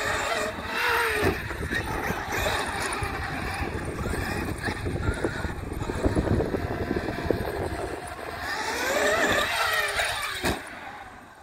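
Traxxas X-Maxx electric RC monster truck running on 6S, its brushless motor and drivetrain whining up and down in pitch with the throttle. Near the end the whine climbs and falls again as it goes over a dirt mound, followed by one sharp thud as it comes down.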